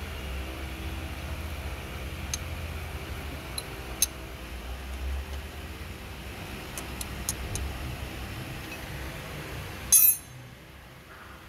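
Light metallic clicks and clinks of a hand tool being worked against a timing belt and its tensioner pulley, over a steady low hum, with one sharp metallic clack about ten seconds in.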